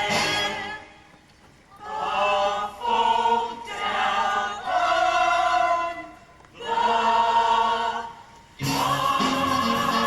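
Stage musical cast singing in chorus, in short phrases with brief pauses between them. Near the end the full ensemble comes back in louder, with accompaniment.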